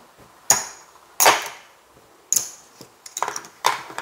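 Casino chips clacking together as they are picked up off the craps layout and set into the chip rack: a few sharp clacks about a second apart, then a quicker run of small clicks near the end.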